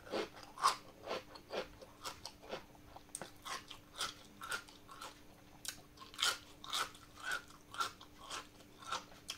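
Someone chewing crunchy vinegar-marinated cabbage close to the microphone: crisp crunches about twice a second.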